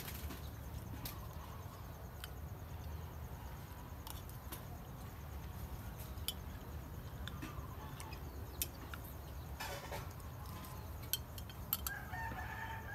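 A metal spoon clicking now and then against a glass cup while jelly is scooped and eaten, over a low steady rumble. Near the end a rooster starts to crow.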